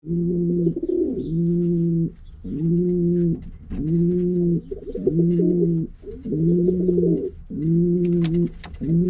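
Pigeon cooing: the same low, throaty coo repeats about once a second, each call lasting under a second.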